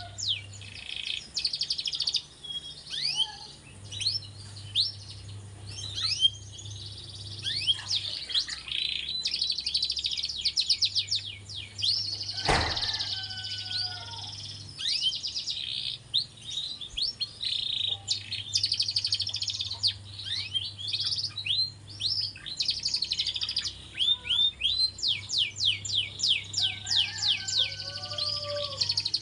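Canary singing a long song of fast rolling trills and chirps in the kriwikan style, with a low steady hum underneath and a single knock about halfway through.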